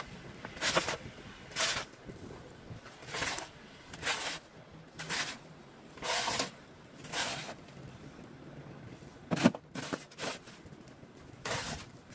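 Snow shovel scraping across snow-covered paving stones, stroke after stroke at roughly one a second, each scrape short and rasping, with a pause of about two seconds shortly before the end.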